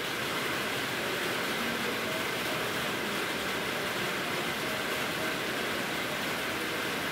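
Steady rain falling on a roof, an even hiss that holds unchanged throughout.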